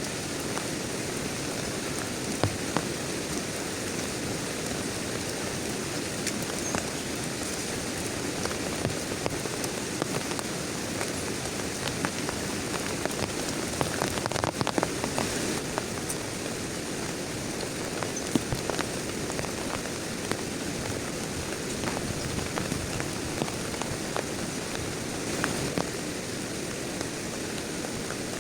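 Heavy rain falling steadily, with many distinct sharp drop impacts over the constant hiss, coming thickest a little past halfway.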